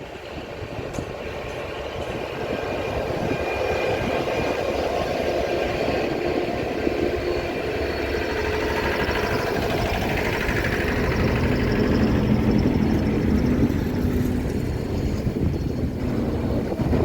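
Class 69 diesel locomotive heading a railhead treatment train as it draws into the station, its engine growing louder as it approaches, with steady higher whining tones over the engine note.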